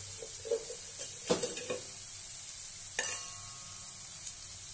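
Vegetable pastes sizzling steadily in hot oil in a metal kadai. A few sharp metal clinks come about a second in, and one ringing clink comes about three seconds in.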